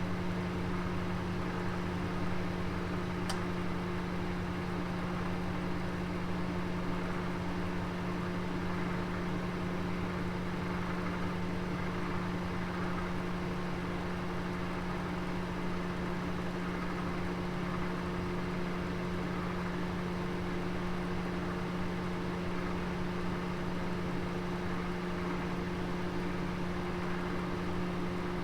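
Oven running with a roast cooking inside: a steady hum over an even rush of air, with one faint click about three seconds in.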